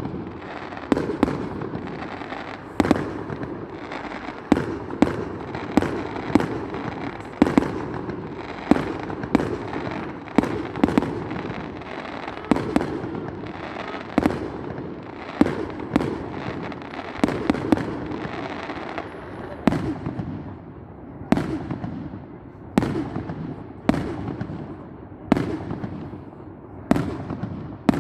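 Aerial fireworks display going off: a steady run of sharp bangs, about one a second, over a continuous crackle and rumble of bursting shells.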